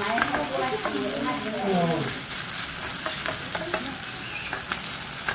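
Vegetable pancake (jeon) sizzling in oil in a frying pan. A few light clicks and scrapes come from a spatula pressing it in the second half.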